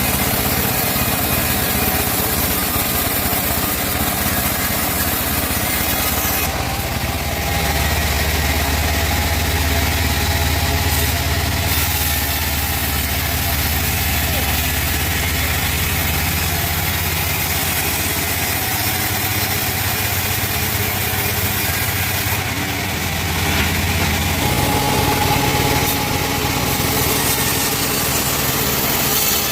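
Band sawmill running steadily as it saws through teak wood, its engine-driven hum constant. The low hum grows stronger from about seven seconds in until about twenty-four seconds in, as the blade works through the log.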